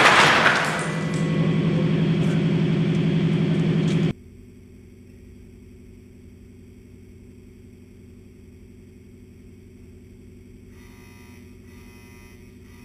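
The tail of a loud crash as a 15-pound 2x4 timber missile, fired at 100 mph, shatters against a steel storm-shelter door panel, with wood pieces clattering down and a few sharp ticks after it, over a steady low hum. About four seconds in, the sound cuts off suddenly to a much quieter steady background.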